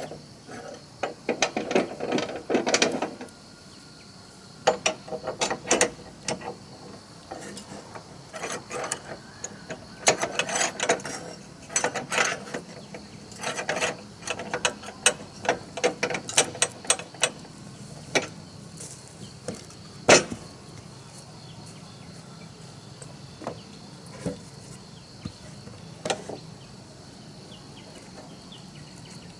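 Irregular clatter of knocks and clicks, thick over the first two-thirds and then thinning out, with one sharp loud knock about twenty seconds in. Insects buzz faintly and steadily behind.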